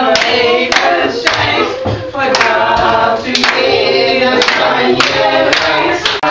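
A group of people singing a song together, clapping along in time, about two claps a second.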